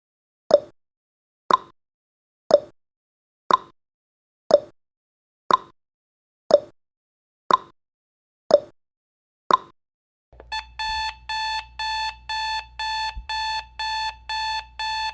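Countdown timer sound effect: a sharp tick once a second, then about ten seconds in the timer reaches zero and an alarm-clock beeping starts, a fast run of pitched beeps, about two a second.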